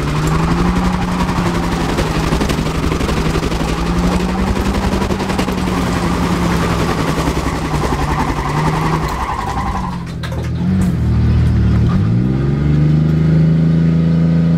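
Ford Explorer's engine held at high revs through its aftermarket exhaust as the SUV does donuts on its locked rear differential, the rear tyres spinning and squealing on the asphalt. About ten seconds in the tyre noise stops and the revs drop sharply, then climb back up and hold.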